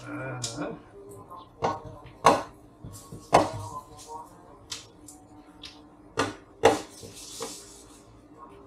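Metal spatula knocking and scraping against a frying pan while an omelette is worked and broken up in it: several sharp taps at uneven intervals.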